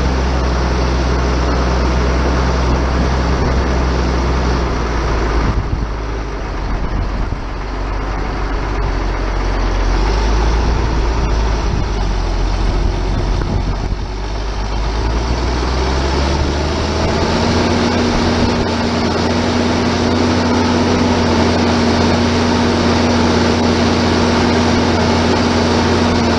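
Ford TW-25 tractor's six-cylinder turbo diesel running under load while discing. The engine note sags and turns rougher about five seconds in, then the revs climb at around two-thirds of the way through and hold at a steady, higher pitch.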